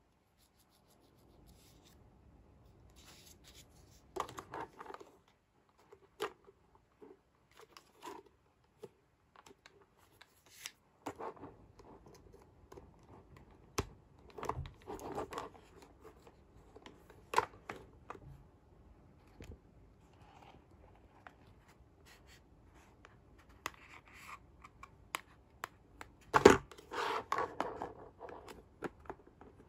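Plastic parts of a Hello Kitty toy candy wagon being handled and fitted together: scattered clicks, taps and scrapes of hard plastic, with the loudest snap near the end.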